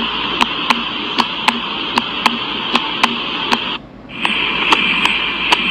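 Recorded heart sounds: a rapid, evenly spaced run of short clicks, about three to four a second, over a steady hiss. The hiss drops out briefly about four seconds in, then returns.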